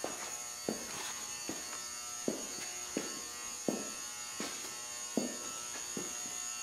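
Footsteps on a concrete floor, one about every three quarters of a second, over a steady high-pitched electrical whine and buzz.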